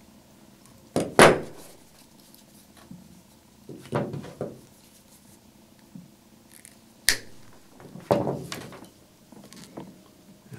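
Metal hand tools clicking and clattering as they are put down and picked up, with one short sharp snip of flush wire cutters cutting through 16-gauge wire about seven seconds in.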